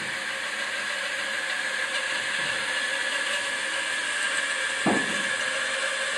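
Band saw running steadily with a constant motor whine. A single short knock sounds about five seconds in.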